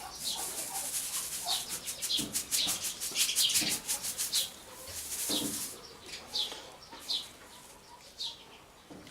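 Small birds chirping: repeated short, high, falling chirps, with a fast rattling run of notes between about one and four and a half seconds in.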